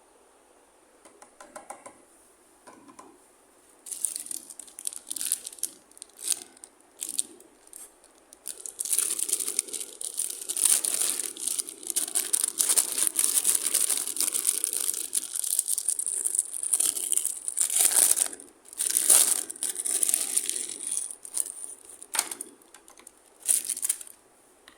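Packaging being crinkled and torn by hand while a toy is unboxed: a few short rustles about four seconds in, then a long stretch of dense crackling and tearing, and a few last crinkles near the end.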